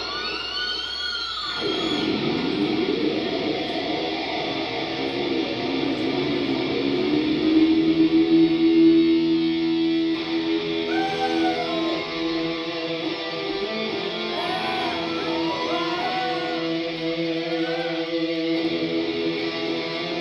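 Electric guitars played live through amplifiers, holding sustained notes with several bends and swoops in pitch, loudest a little past the middle, with little or no drumming heard.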